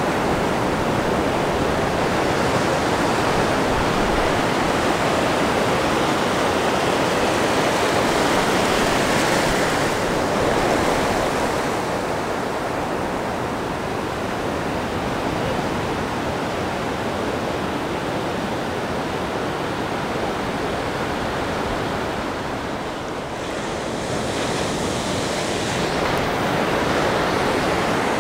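Ocean surf breaking and washing over the shallows: a steady rush of waves and foam, easing slightly about three-quarters of the way through before building again.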